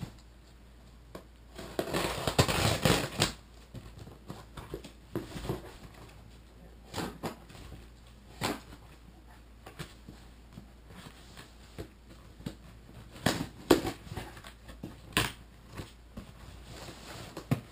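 Cardboard shipping box being opened: a blade rasps along the packing tape for a second or so near the start, then scattered knocks, taps and crinkles of cardboard as the flaps are handled.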